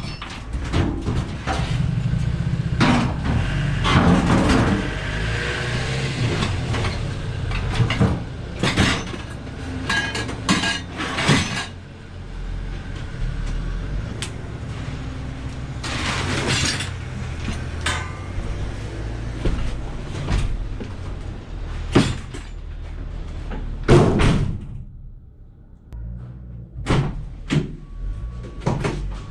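Scrap metal clanking and clattering as it is handled and unloaded, with repeated sharp knocks over a steady low engine rumble.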